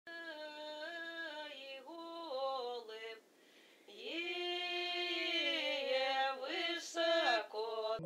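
A single high voice singing unaccompanied, holding long notes that step up and down, with a short break a little after three seconds in before a long held note.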